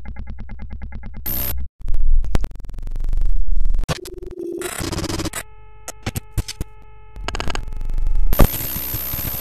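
Glitchy electronic outro sound: fast stuttering synth pulses that cut off about two seconds in, then bursts of static, rising noise swells and a few held electronic tones.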